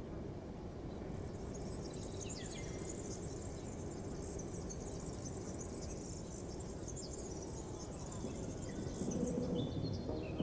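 Outdoor ambience: a steady low rumble under dense, high chirping of insects and birds. The chirping sets in about a second in and thins out near the end.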